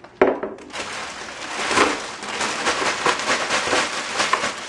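A single knock, then individually wrapped mini chocolate bars pouring out of a large bag into a plastic pail: a dense patter of small clattering impacts with wrapper rustle.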